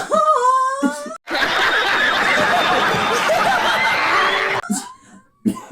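A person's drawn-out, wavering "aaah" for about a second. After a brief break comes about three seconds of steady snickering laughter.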